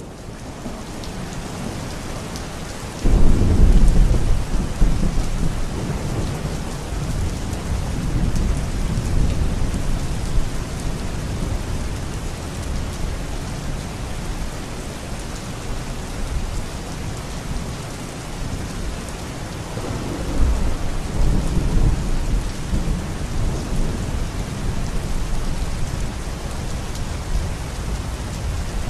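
Steady rain with rolling thunder: a long low rumble breaks in about three seconds in and fades over several seconds, and a second rumble swells about twenty seconds in, over a constant rain hiss.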